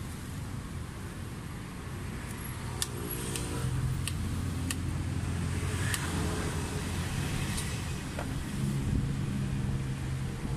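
Street traffic with a vehicle engine running steadily close by, and a few sharp clicks of a knife striking a cutting board as a cucumber is sliced.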